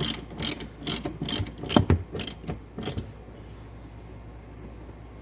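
Hand ratchet with a Torx bit clicking in short strokes as a seat-rail bolt is tightened down, about three clicks a second for roughly three seconds, with one heavier knock near the middle, then it stops.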